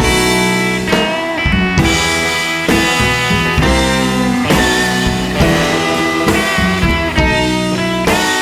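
Rock-style music with guitar and drums, the chords changing on a steady beat.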